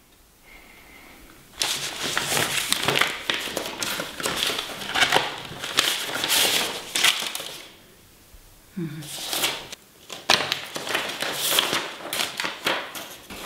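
Sheets of paper rustling and crinkling as they are handled, starting about a second and a half in, pausing around eight seconds, then resuming about ten seconds in.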